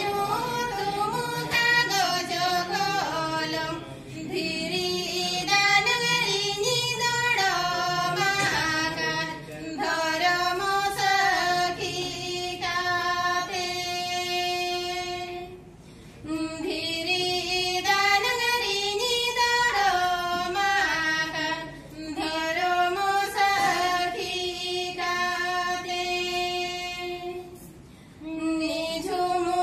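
Two women singing a song together without accompaniment. The phrases are separated by short breaks, and the last note of several phrases is held.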